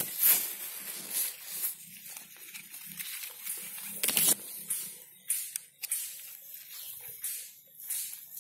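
Water apple tree leaves rustling and brushing against the microphone as a hand pushes through the branches: a string of short, irregular rustles, the loudest near the start and about four seconds in.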